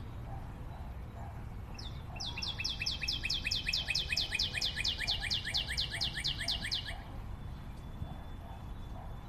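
A songbird singing a long trill of quick, downward-slurred notes, about six a second, starting about two seconds in and stopping about seven seconds in, over a low steady background rumble.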